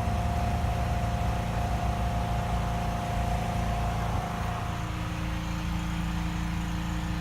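Champion portable generator's engine running steadily under the load of an electric heater set to full heat. About four seconds in it gets slightly quieter and a high whine in the sound drops out.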